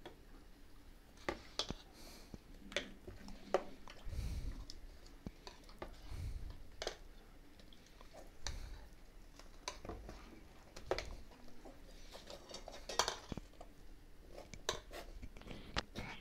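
A steel spoon stirring a thick curry in a stainless steel pot, with irregular clinks and scrapes of metal on metal.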